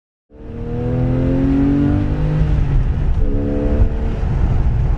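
Car engine accelerating hard over a low road rumble: its pitch climbs, drops at a gear change about two and a half seconds in, then climbs again.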